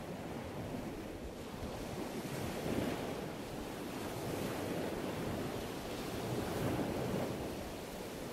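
Steady wind rushing over the microphone while riding, a dull rumbling noise heaviest in the low end and swelling slightly now and then.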